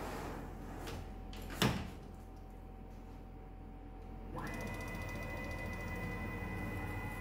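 A single sharp knock, then a steady machine whine with a few fixed pitches that starts abruptly about four seconds in. The whine is the mill's stepper motors driving the table along its ball screw. A low steady hum lies underneath throughout.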